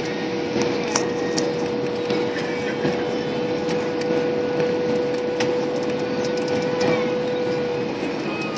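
Steady cabin noise of an airliner on the ground after landing: engine and airflow running with a steady hum, and scattered light clicks from the cabin.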